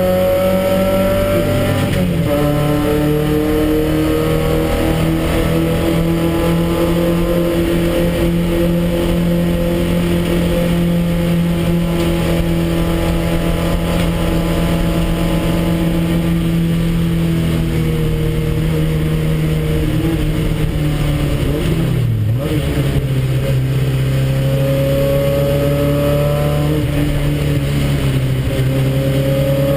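Porsche 944 race car's four-cylinder engine at racing revs, heard from inside the cockpit. The revs climb, drop with a gear change about two seconds in, hold high, then fall away under braking with a sharp blip about two-thirds through before climbing again.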